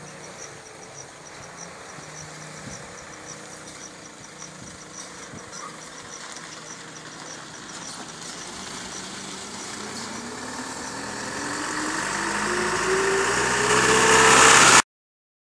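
Motorcycle engine growing louder and rising in pitch over the last few seconds, then cutting off suddenly. Throughout, insects chirp in a steady high pulse, about five chirps a second.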